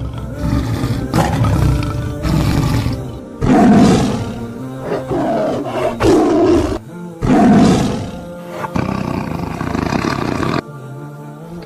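Lion roaring and growling in a series of deep, rough calls, loudest about four and seven and a half seconds in, over background music.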